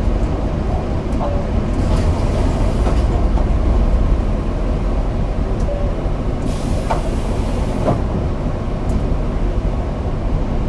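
Inside a city bus: a steady low rumble of engine and road noise, with two spells of hiss about two seconds in and around seven seconds in.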